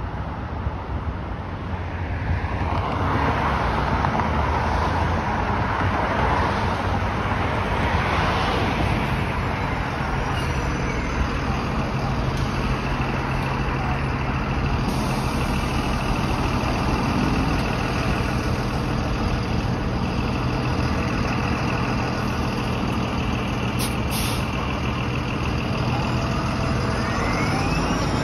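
A TTC city bus drawing up to the curb and standing with its engine running steadily. There is a short burst of air hiss from its air system about 24 seconds in, and it starts to pull away near the end.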